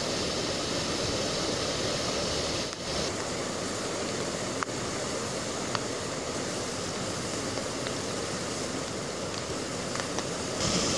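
Floodwater rushing over a weir and down a concrete channel: a steady rush of water.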